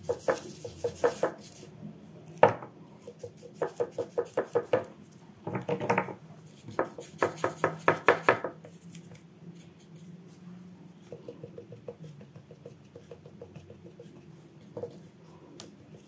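Paintbrush knocking and clicking against the paint palette as gouache is worked up, in several quick runs of sharp taps, followed by fainter, lighter ticks in the second half.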